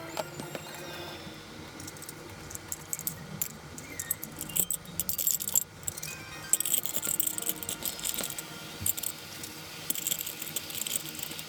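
Small hard objects clinking and rattling as they are handled, in irregular clusters that grow busier past the middle, over background music.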